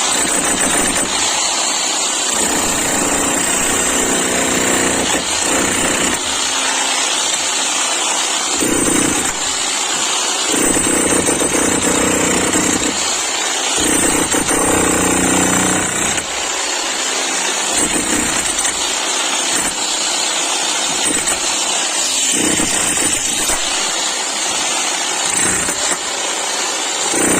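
11 kg demolition hammer running steadily and loudly, its rapid chiselling blows merging into one continuous rattle.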